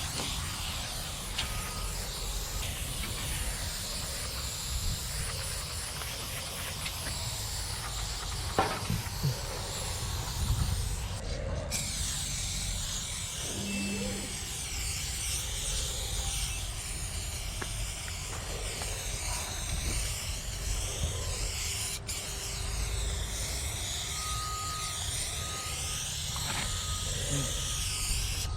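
Aerosol spray-paint cans with wide Astro Fat Cap nozzles hissing as they spray, over a low rumble.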